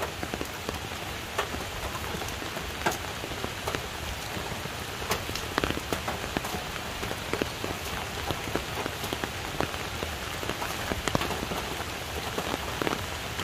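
Steady rain falling, with many individual drops ticking irregularly on nearby surfaces.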